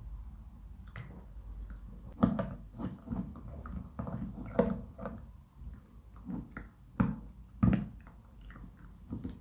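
Handling noises: a series of sharp clicks and knocks, the loudest about two seconds in and a close pair about seven seconds in, with softer taps between.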